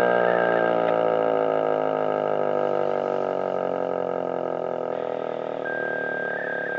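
American Signal T-121 warning siren winding down at the end of its full-alert steady signal, its pitch slowly falling and its sound fading.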